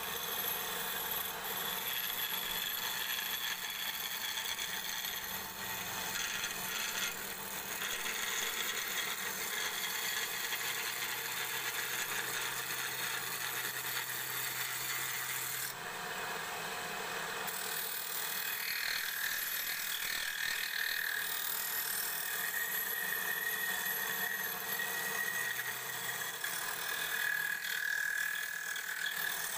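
Wood lathe spinning a long cylindrical wooden spindle blank while a hand-held turning chisel cuts along it: a steady scraping, shaving hiss of the tool on the wood.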